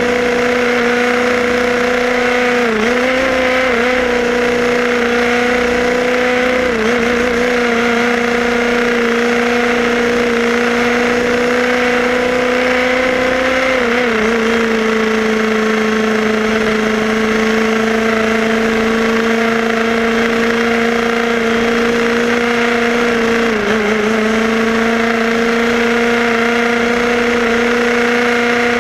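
A Tamiya RC buggy's electric motor and gears whine at a steady pitch while it drives along. The pitch dips briefly a few times as the throttle eases, at about 3, 7, 14 and 24 seconds in, and runs slightly lower after the third dip.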